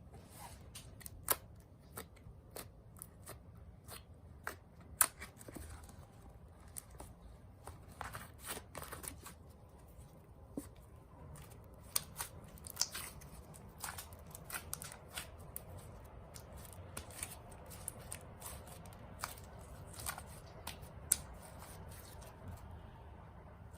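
Homemade slime being worked by hand: irregular small clicks and pops, some louder snaps scattered through.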